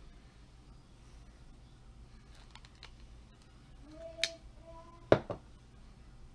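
Handheld wire stripper-crimper squeezing an insulated crimp connector onto a wire: a few light clicks, then two sharp snaps a little under a second apart, the second louder, with a short squeak between them.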